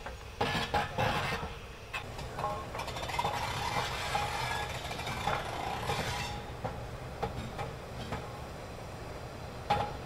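Steam locomotive and coaches rolling slowly past, with clinks and knocks from wheels and couplings. A steady hiss runs for a few seconds and stops suddenly about six seconds in, leaving a quieter rumble with scattered clicks.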